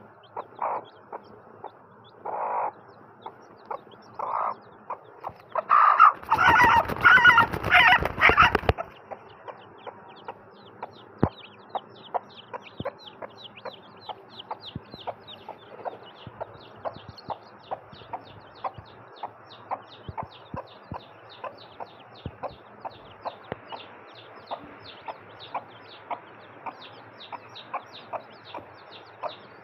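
A broody hen clucking low, then a loud harsh drawn-out call for about three seconds near six seconds in. After it, newly hatched chicks peep continuously in rapid short, high, falling notes, several a second, under the hen's soft clucks.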